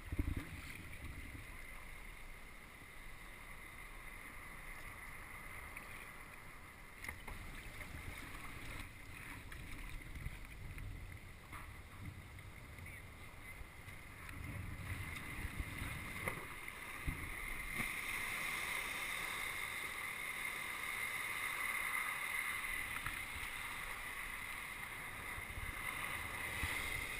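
Water sloshing and splashing around a sea kayak as it is paddled, growing louder about halfway through.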